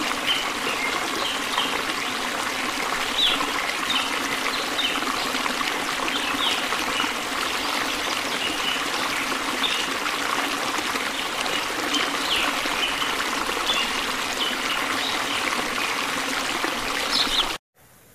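Stream water rushing over rocks, a steady rush with short high chirps scattered through it; it cuts off suddenly near the end.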